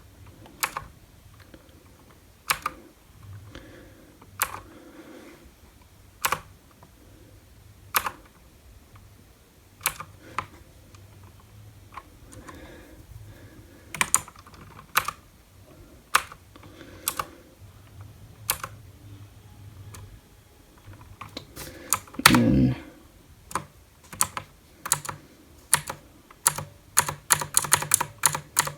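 Alpha Gaming Viper mechanical keyboard's clicky blue switches pressed one key at a time, every second or two, then in quicker runs near the end. A louder thump comes about two-thirds of the way through.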